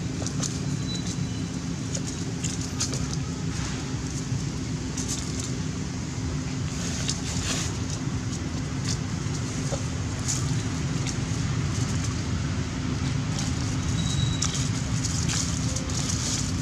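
Scattered crackles and rustles of dry leaf litter as baby monkeys scramble over it, over a steady low rumble.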